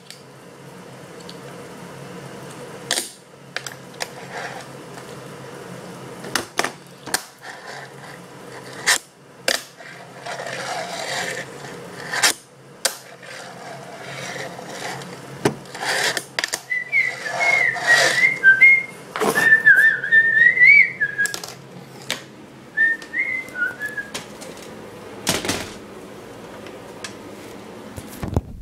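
Fingerboard on a wooden tabletop: sharp clacks as the little board pops and lands, with rolling scrapes between. A little past the middle, a person whistles a wavering tune for several seconds over the clacks.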